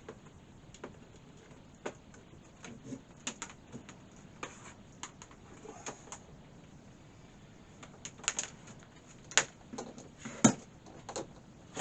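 Irregular plastic clicks and knocks of a power cable, plug and plug adapter being handled and pushed into place, with two louder knocks near the end.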